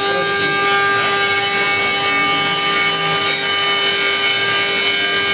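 CNC wood router spindle running with a steady whine of several held pitches, its tapered engraving bit cutting a relief into wood with a rasping noise underneath.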